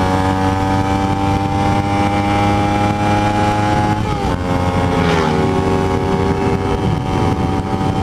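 2009 Kawasaki Ninja 250R's parallel-twin engine with a Two Brothers slip-on exhaust, heard from the rider's seat under way at a steady note. Its pitch steps down about four seconds in and again about a second later.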